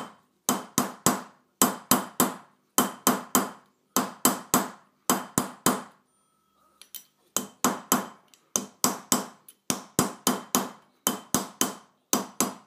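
Hammer blows on a 22 mm copper tube being shrunk into a ball in a half-round groove, mostly in quick groups of three, each blow ringing briefly. There is a pause of about a second around six seconds in, with only a couple of faint taps.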